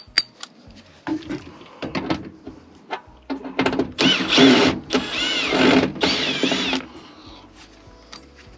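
Cordless drill-driver backing out sheet-metal screws: three or four short runs of its motor whine, wavering in pitch with the trigger, a few seconds in. Clicks and knocks of the tool being handled against the metal cabinet come before.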